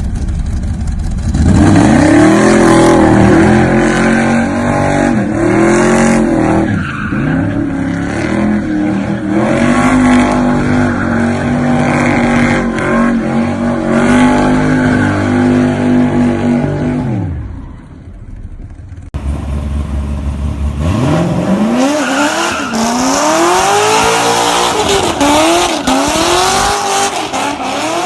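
Corvette engines revving hard in two clips, with tyre squeal from burnouts or drifts. The first holds high revs, then dies away about 17 seconds in. The second starts about 19 seconds in and revs up and down in repeated swells.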